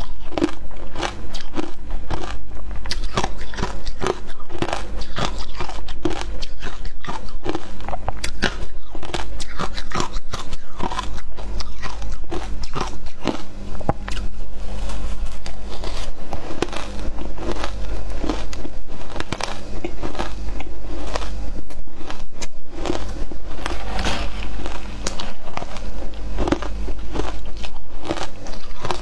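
Ice chunks coated in matcha powder being bitten and chewed right at a clip-on microphone: a continuous run of crisp, irregular crunches.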